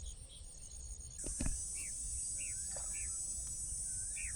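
Insects trilling in a high, pulsing buzz that becomes a steady, louder drone about a second in, with a bird giving short, repeated chirps over it. A brief knock sounds just after the drone sets in.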